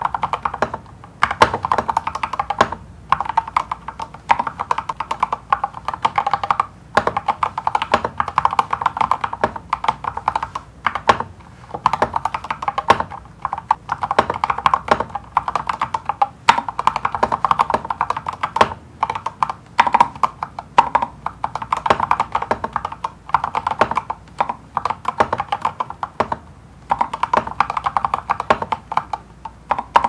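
Typing on a mechanical keyboard: a steady, fast stream of keystroke clacks, broken by a few brief pauses.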